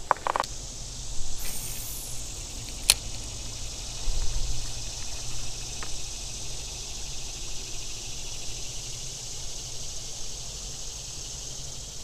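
A steady high-pitched drone of summer insects, with light handling noise from a spinning reel being cranked and one sharp click about three seconds in.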